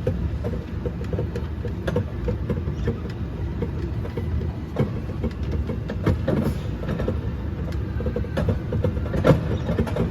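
Small mall ride-on train running: a steady low rumble with irregular knocks and rattles from the carriages.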